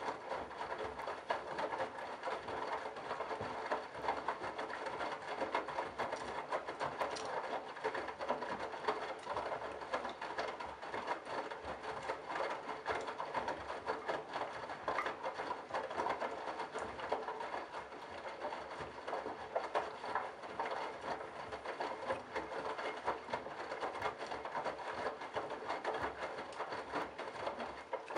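Candy Bianca front-loading washing machine tumbling a load of wet towels and bathrobes: the drum turning with the laundry swishing and patting, over a steady motor hum.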